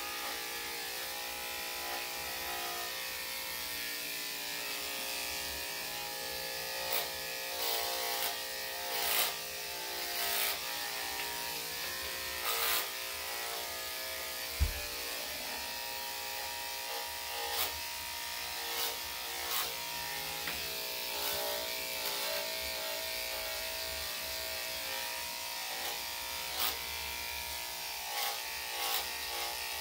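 Electric dog clippers with a #7 skip-tooth blade running steadily as they shave a spaniel's thick coat, with short louder rasps now and then as the blade works through the fur, and one sharp knock about halfway through.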